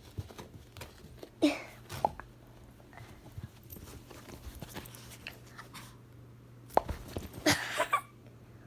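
A dog making a few short sounds: one falling in pitch about a second and a half in, another just after, and a cluster of louder ones near the end, with light knocks and scuffles between.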